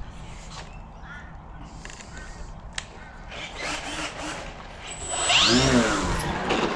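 Electric motor and propeller of a Flex Innovations Mamba 10 radio-controlled aerobatic plane: a whine that builds from about three seconds in and rises sharply in pitch a little after five seconds, the loudest part.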